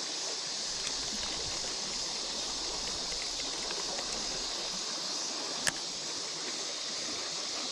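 Creek water running steadily, a constant rushing hiss. A single sharp click about three-quarters of the way through.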